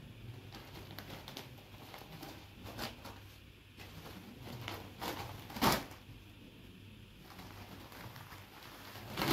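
A folded cotton saree being unfolded and spread out over a cloth sheet: soft fabric rustling with a few brief swishes, the loudest about five and a half seconds in.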